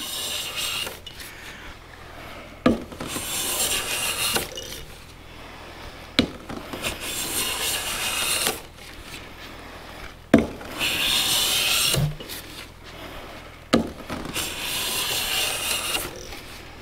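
Metal hand plane taking five full-length passes along a thin bandsawn wood veneer, bringing it to an even thickness. Each stroke is a hissing shave of about two seconds that opens with a knock as the plane lands on the wood.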